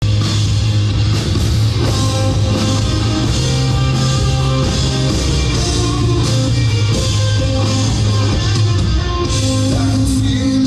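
Live rock band playing an instrumental passage with electric guitars and a drum kit, heard from the audience.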